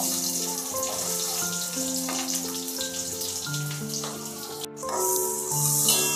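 Sliced small onions sizzling in hot sesame oil in a steel pan as they are tipped in, over background music. Near the end a steel ladle stirs them and the sizzle grows louder.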